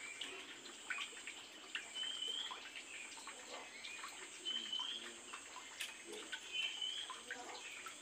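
Oriental magpie-robin giving short rising whistled notes about every two seconds, with soft chirps and ticks in between.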